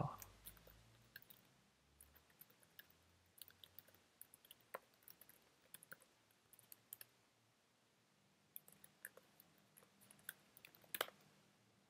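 Faint, irregular clicks of computer keyboard keys being typed, coming in short runs with pauses between them.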